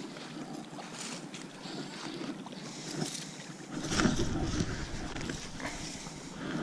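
Largemouth bass splashing at the surface as it is reeled to the bank and lifted from the water, with a heavy low rumble on the microphone from about four seconds in.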